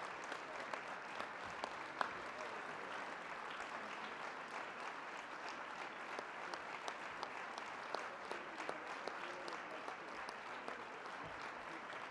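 Large audience applauding steadily, a dense patter of many hands clapping, tailing off slightly near the end.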